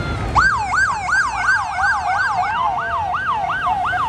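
Police motorcycle sirens in yelp mode: a fast rising-and-falling wail about three times a second that starts just under half a second in, with a second siren overlapping it for the first couple of seconds.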